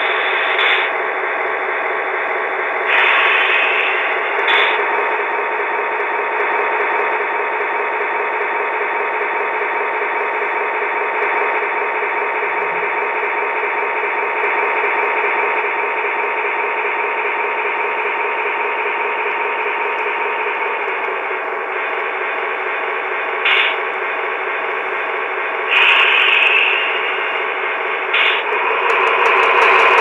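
QSI Quantum sound decoder in an HO-scale Atlas Fairbanks-Morse Train Master playing its diesel engine sound through the model's small speaker: a steady, tinny engine drone. A few brief louder sounds come in near the start and near the end, and the engine note shifts a little past two-thirds of the way through.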